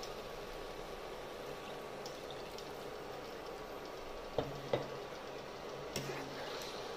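Water poured into a hot pan of potato curry, with steady bubbling and hissing from the pan. In the second half a few sharp clinks of a metal slotted spoon against the pan as the curry is stirred.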